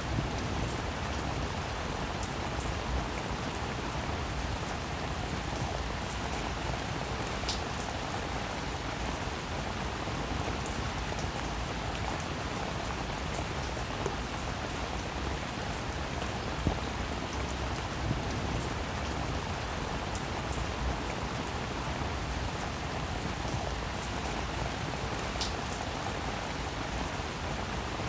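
Steady rain falling on a surface, a continuous even patter with scattered individual drops ticking through it.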